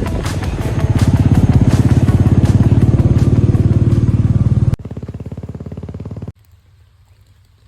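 Motorcycle engine running close up with a rapid, even beat. It cuts off abruptly a little under five seconds in, and after a quieter stretch the sound drops to a faint background.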